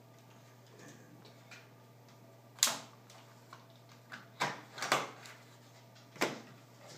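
Battery pack being unlatched and pulled out of an Acer Aspire One D255E netbook: four sharp plastic clicks and knocks, the loudest about two and a half seconds in.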